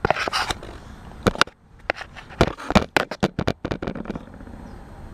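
A quick run of sharp clicks and small metallic knocks as test-lead clips and wire connectors are handled on an air conditioner capacitor for a microfarad test, stopping about four seconds in. Steady background noise continues underneath.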